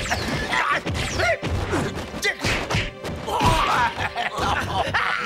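Fight-scene sound effects: a rapid run of punches, whacks and crashes, about two hits a second, mixed with short cries and background music.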